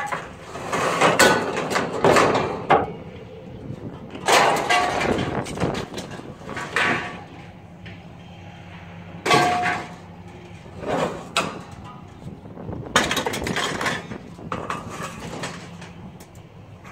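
Scrap steel wire shelving and sheet-metal flashing clattering and clanging as it is thrown onto a scrap pile. The noise comes in several separate bursts of rattling metal, one with a brief ringing tone.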